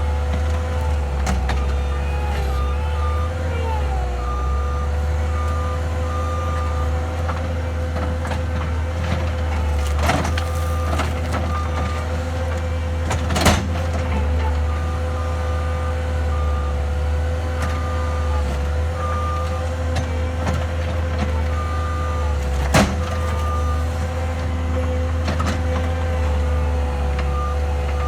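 Skid steer loader engine running steadily, its reversing alarm beeping in several runs as it backs up. Two sharp knocks stand out, one about halfway through and one later on.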